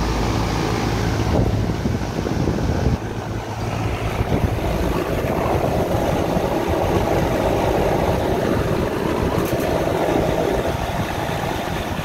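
Steady running noise of a new Carrier rooftop package air-conditioning unit, with a low hum that eases a few seconds in; its compressors are not running, the unit's no-cooling fault.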